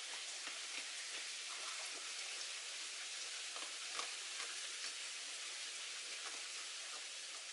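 Steady rain pattering, with scattered small ticks and a sharper click about four seconds in.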